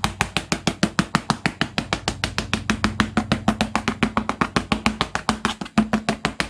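Music with a fast, steady percussive beat, about nine hits a second, over a held low note.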